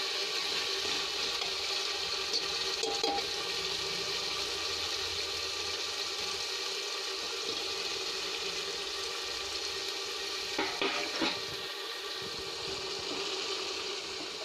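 Ginger-garlic-onion paste and onions sizzling steadily in hot oil in a pressure cooker as the masala is fried down, with a few brief clinks of the stirring spoon against the pot about ten to eleven seconds in.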